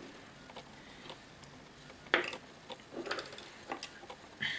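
Scattered light clicks and taps of small parts being handled: the battery pack, its wires and the open plastic clipper housing knocked and shifted while the pack is held to the board for soldering. The loudest taps come about two seconds in, a quick cluster around three seconds, and one more near the end.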